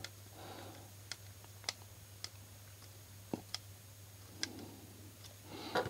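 Small screwdriver driving a screw through a transmitter's circuit board into its plastic frame: about half a dozen faint, scattered clicks of the tool and plastic parts.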